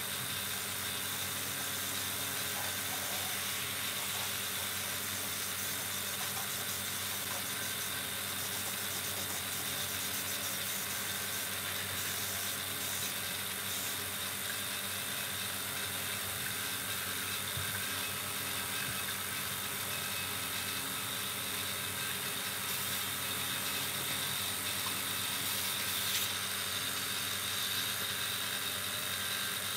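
Steady hum and whir of an electric motor running at constant speed, even in level throughout.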